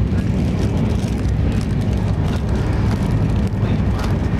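Steady low rumble of an express train's passenger coach running at speed, heard from inside the coach, with a few light clicks and rustles of food packaging being handled.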